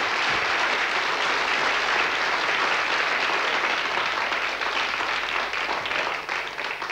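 Audience applauding, a dense steady clapping that starts abruptly and dies away near the end.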